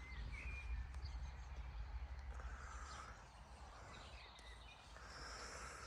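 Faint, scattered bird chirps over quiet rural outdoor ambience with a steady low rumble.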